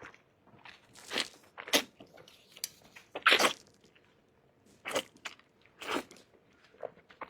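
A person eating close to the microphone: a string of about six separate crunchy bites and chewing sounds, spaced a second or so apart.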